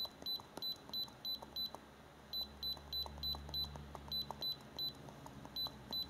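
Key beeps from an iCarsoft i930 handheld diagnostic scanner as its arrow button is pressed again and again to scroll through a menu: short, high-pitched beeps at about three a second, with two brief pauses in the run.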